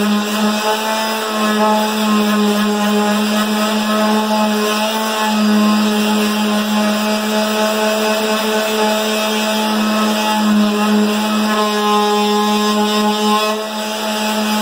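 Electric palm sander running steadily while sanding a wooden block, a constant motor hum with a brief dip in level near the end.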